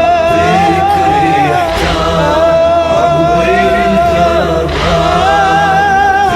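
Vocal music from a Shia latmiyya (mourning chant): voices hold a long, slowly wavering melodic line without clear words, over a steady low backing.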